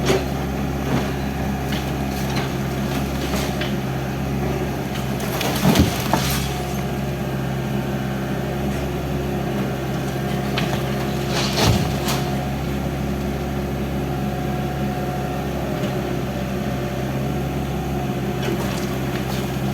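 Excavator engine running steadily, with scattered cracking and crunching of building material being broken apart; the two loudest crunches come about six and twelve seconds in.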